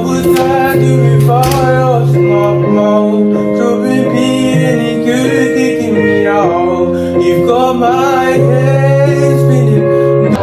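A song playing: a sung melody with long held, sliding notes over guitar and sustained bass accompaniment. It cuts off abruptly at the end.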